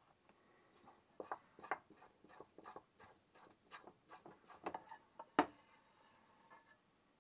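Spatula scraping thick beetroot filling out of a pot, in a run of short scrapes and taps against the pot's side, with one sharper knock about five and a half seconds in.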